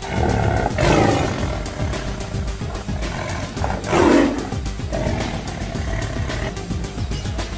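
A lion roaring twice, once about a second in and again, louder, about four seconds in, each call falling in pitch, over background music.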